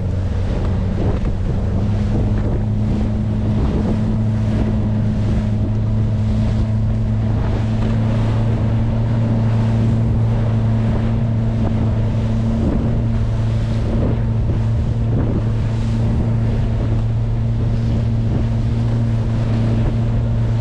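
Small fishing boat's engine running at a steady speed under way, a constant low hum, over wind buffeting the microphone and the rush of the wake.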